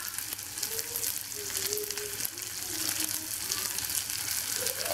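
Chopped red onion and coriander seeds frying in oil in a saucepan: a steady, crackling sizzle.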